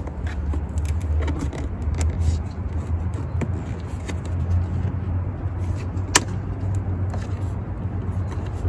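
Plastic cowl panel and rubber windshield seal of an Infiniti Q70 being pushed and worked into place by hand: scattered light clicks and knocks, with one sharp snap about six seconds in as a clip goes home. A steady low hum runs underneath.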